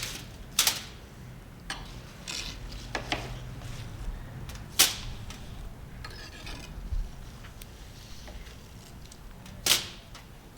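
Hand work on vise parts and tools on a workbench: scattered sharp knocks and clicks, the loudest about half a second, five seconds and ten seconds in, with a few short scrapes between them.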